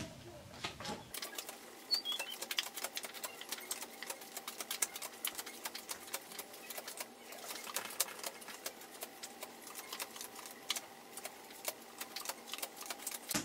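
Playing cards being dealt one at a time face up into piles on a table: a run of soft, quick clicks and flicks as each card slides off the deck and lands, several a second, starting about a second in.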